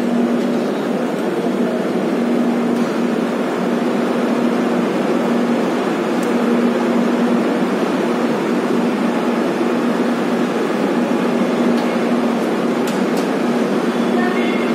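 Steady running noise of the Ahmedabad–Patna Express heard from inside a passenger coach: an even rush of the moving train with a low steady hum underneath.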